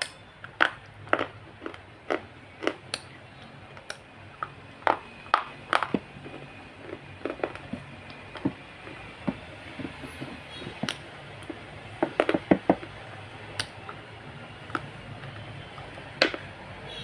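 Close-up crunching: sharp, crisp bites into a hard white stick, followed by chewing, coming in irregular clusters with a tight burst of crunches about two-thirds of the way through.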